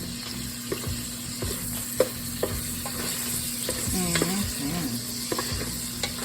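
Smoked sausage and shrimp sizzling in bacon grease in a pot, a steady hiss with scattered sharp clicks and pops, the loudest about two seconds in.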